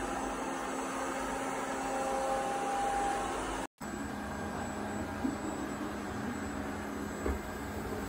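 Robot vacuum cleaner running, a steady whirring hum, first on a wooden floor and then on a doormat. The sound drops out for a split second a bit under four seconds in and comes back with a slightly different tone, with a couple of faint knocks later on.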